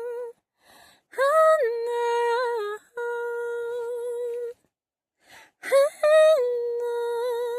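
A woman humming a melody unaccompanied, in three phrases of long held notes with a slight waver, taking short breaths between them.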